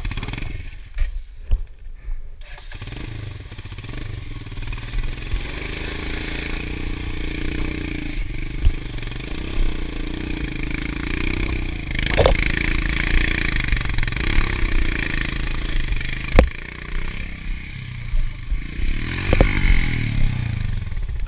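Honda Tornado single-cylinder dirt bike engine revving hard under load as the bike struggles, stuck, on a muddy climb. The revs come up about two seconds in and stay high, with two sharp knocks later on.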